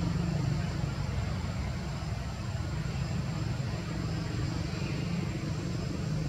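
Steady low rumble of outdoor background noise with a faint hiss and a thin, steady high tone above it.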